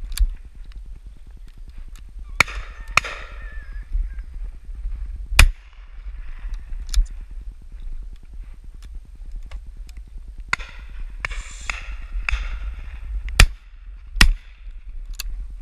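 Shotgun shots on a driven game shoot. There is one loud 20-bore shot about five seconds in and a loud pair under a second apart near the end, with fainter shots from other guns in between.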